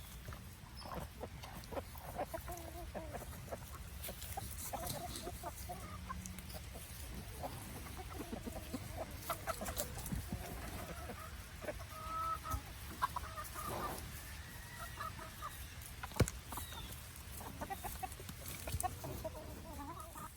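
A flock of chickens clucking and calling while they feed, with short pecking ticks among the calls and one sharp click about 16 seconds in.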